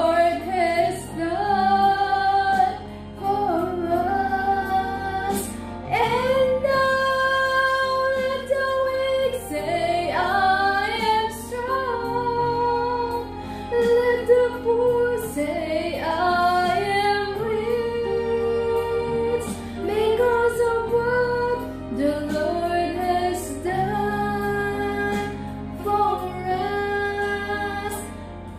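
A woman singing solo into a microphone, a melodic song with long held notes and gliding pitch.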